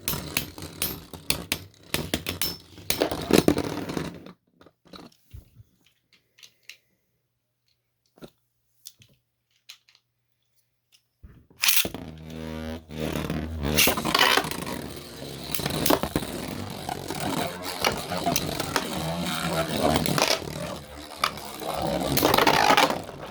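Clicking and clattering, then a few seconds of near silence. About halfway through, Beyblades are ripped off their launchers with a brief whir and spin in the plastic stadium, clashing and scraping against each other again and again; one is a 3D-printed top that comes out of the battle half burst.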